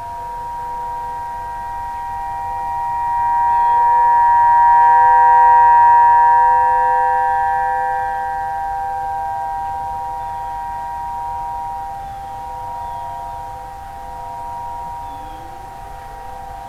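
Several outdoor tornado warning sirens sounding a steady tone at the same time, their different pitches overlapping. The sound swells louder about four to seven seconds in, then eases back.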